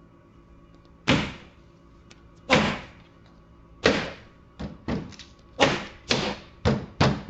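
About nine sharp thumps by hand on a kei truck's door panel, as a door speaker or door card is knocked into place. They come slowly at first, then faster toward the end.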